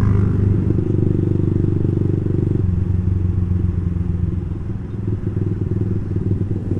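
Motorcycle fitted with a Ronin Katana aftermarket exhaust, running at low riding speed with a steady low exhaust note. The note drops a step a little under three seconds in.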